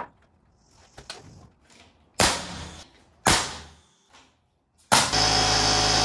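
A pneumatic framing nailer fires twice, about a second apart: two sharp cracks as nails are driven into the pine framing boards. Near the end, a loud, steady motor drone sets in. This is the air compressor feeding the nailer, starting up and running.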